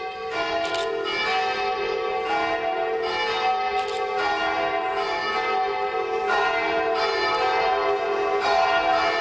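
Bell-like chiming music: ringing tones held in chords that change about every two seconds.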